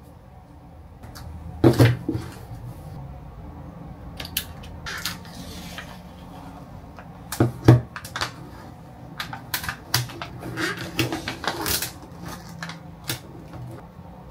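Plastic food cups and packaging handled on a wooden tabletop: a cup set down with a knock about two seconds in, a double knock about halfway, then crinkling and crackling of a plastic film lid being peeled off a steamed egg cup in the later part.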